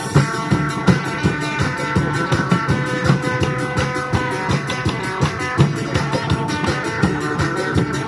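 Upbeat dance music with a steady, driving beat.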